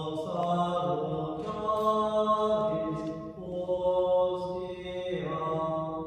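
Slow devotional chant in long held notes, moving to a new pitch every second or two.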